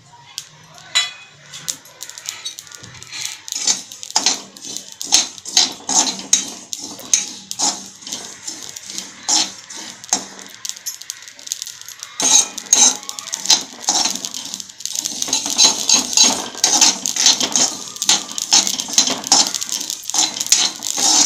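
Steel spatula scraping and clinking against a metal kadhai while stirring poppy seeds being dry-roasted. The scrapes are sparse for the first few seconds, then come fast and almost without a break near the end.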